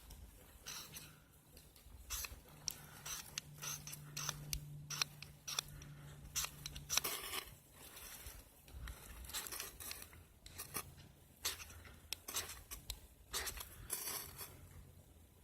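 Ferro rod fire starter being struck again and again, the striker scraped along the rod in irregular sharp strokes, a few of them longer, while trying to light dry oak-bark tinder.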